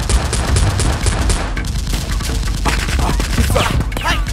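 Rapid automatic gunfire, about five shots a second for the first second and a half, then more scattered shots, over background music with a steady heavy bass.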